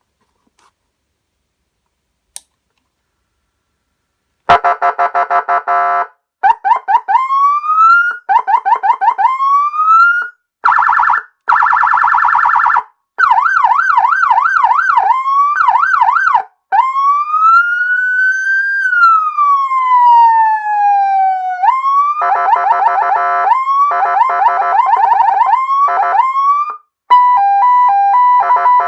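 Electronic police siren played through a horn speaker, stepping through its tone patterns after about four seconds of near silence broken by one click. It gives a harsh buzzing tone, then repeated rising sweeps, then fast up-and-down yelps. A single slow wail follows, climbing and falling over about five seconds, then rapid warbles, and near the end an alternating two-tone hi-lo.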